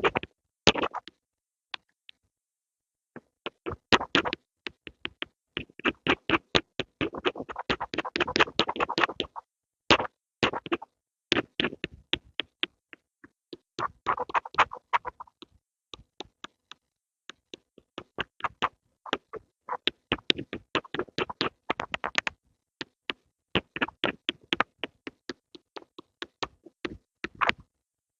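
Pencil strokes close to the microphone: quick, sharp scratches and taps that come in busy clusters, with short pauses between them.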